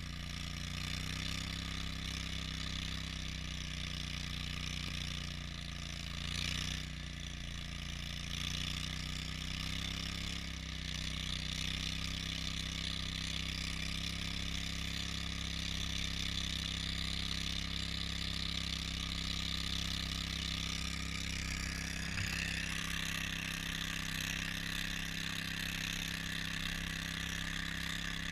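Engine of an Argo tracked ATV running steadily under way through deep snow, with a steady hiss from the tracks and snow over it. The hiss grows a little stronger about three-quarters of the way through.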